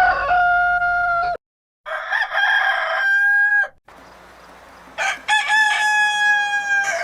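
Rooster crowing three times, each crow a long held cock-a-doodle-doo: the first ends about a second in, the second comes after a short silence, and the third starts near the end.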